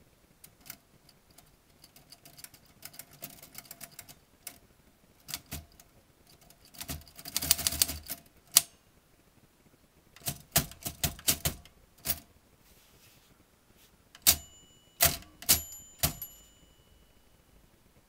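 Royal manual typewriter clacking as its keys are struck, in irregular runs of sharp clacks with a dense rattle partway through and a few loud single strikes near the end. A short ringing tone lingers after some of the last strikes.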